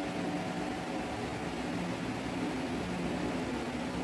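Steady machine hum with a constant hiss: the background noise of a running appliance in a small room.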